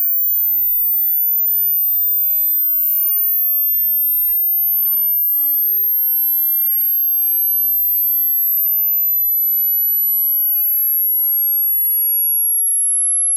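A single pure sine test tone, very high-pitched, gliding slowly and steadily downward in pitch: a high-to-low hearing-test frequency sweep, here still near the top of the hearing range.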